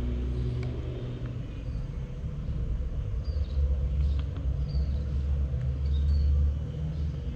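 Low, choppy rumble that swells about three seconds in and eases near the end, with a few short, faint high chirps over it.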